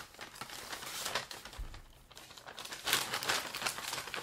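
Brown paper takeout bags rustling and crinkling as hands dig into them for french fries, quieter for a moment about two seconds in, with the loudest rustle about a second later.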